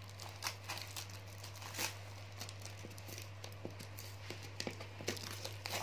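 Scissors picking and snipping at packing tape on a cardboard parcel: scattered faint clicks, scrapes and rustles of tape and cardboard.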